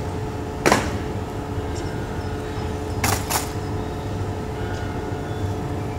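Outdoor ambience at a military parade: a steady low hum and background noise, broken by one sharp brief noise under a second in and two more close together just after three seconds in.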